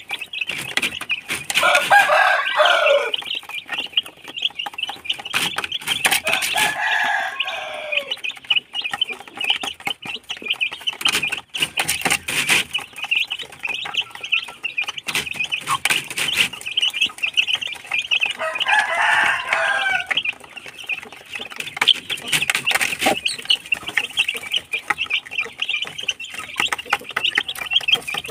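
Two-week-old chicks peeping continuously while pecking at a feeder, with many sharp taps. An adult chicken gives a louder, lower call three times, each lasting a second or two.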